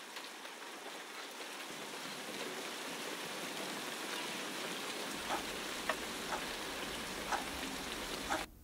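Steady rain falling, an even hiss, with a few louder single drops landing close by in the second half; it cuts off suddenly near the end.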